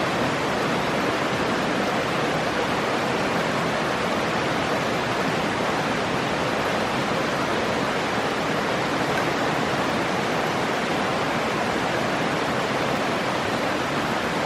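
Stream water rushing, a steady even noise.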